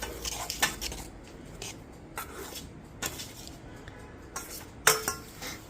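A spoon stirring dry flour mix in a bowl, scraping and clinking irregularly against the bowl, with one sharper clink about five seconds in.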